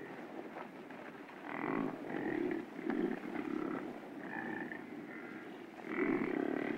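Wildebeest calling with a run of short grunts about every half second, easing off midway, with a louder bout near the end.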